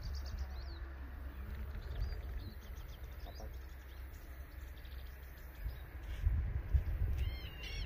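Low gusty wind rumble on the microphone with faint bird chirps. Near the end a southern lapwing (queltehue) starts calling, a run of harsh repeated calls about three a second.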